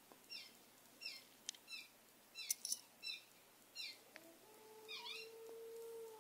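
A small dog begins a soft howl about four seconds in: a low tone that rises and then holds steady. Before it, a series of short, high, falling chirps repeats about every two-thirds of a second.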